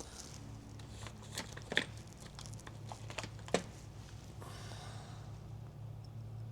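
Small handling clicks and rustles as a soldered bullet contact is pushed and worked into a plastic EC3 battery connector housing, three sharper clicks standing out, over a faint steady low hum.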